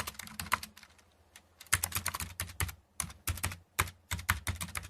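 Computer keyboard typing: keys clacking quickly in several bursts, with short pauses between them.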